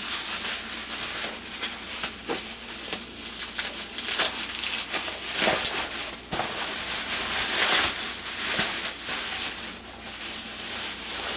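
Packing material rustling and crinkling as it is handled and unwrapped, with scattered small clicks and taps.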